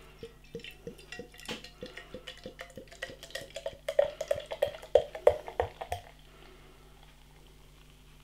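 Copper ale glugging out of a narrow-necked glass bottle into a glass: a quick gurgle of about five glugs a second, louder around four seconds in. The glugging stops about six seconds in, and only a faint steady pour is left.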